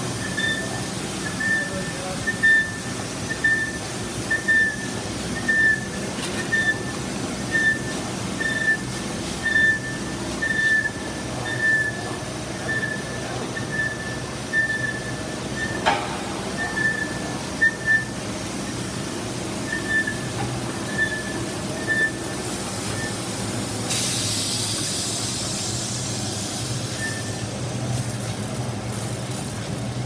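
GOLDFIST carpet washing machine running with a steady hum and a short high squeak repeating about once a second, which stops about three-quarters of the way through. A single sharp knock comes about halfway, and a hiss sets in near the end and slowly fades.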